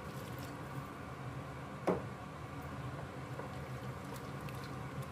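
Water poured from a glass into a pot of simmering tomato sauce, which is then stirred with a wooden spoon: soft liquid sloshing and low bubbling. One brief sharp sound comes about two seconds in.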